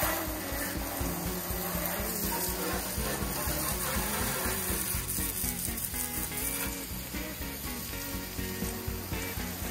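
Background music with a steady beat over the hiss of a hose's water jet spraying onto a rusty pickup truck bed.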